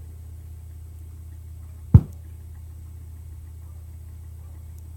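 Sony MHC-EC99i stereo's subwoofer playing a 16 Hz test tone, heard only as a steady low hum. One sharp thump comes about two seconds in.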